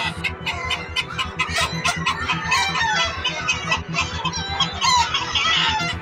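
A large flock of chickens, hens and roosters, clucking and calling over one another in a dense, continuous chorus.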